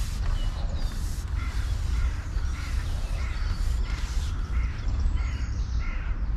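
A bird calling over and over, about nine short calls at roughly two a second starting about a second and a half in, over a steady low rumble.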